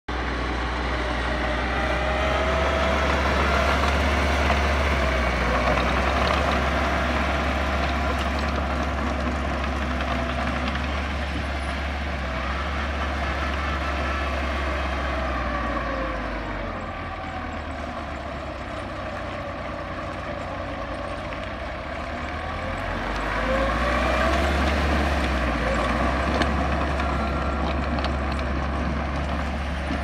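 Small crawler bulldozer's diesel engine running as it works, its pitch rising and falling in slow sweeps; it drops quieter for several seconds about halfway through, then comes back up.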